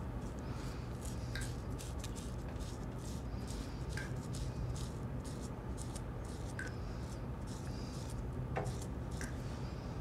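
Razor scraping through beard stubble in short, irregular strokes, over a steady low hum. A faint high tick recurs about every two and a half seconds.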